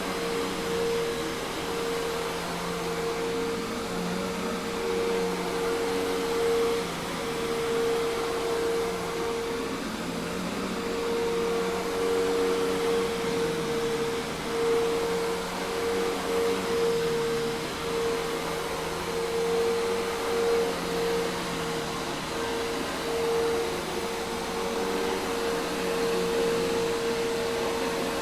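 Hoover Task Vac commercial vacuum cleaner running steadily: a constant motor whine over a rush of air.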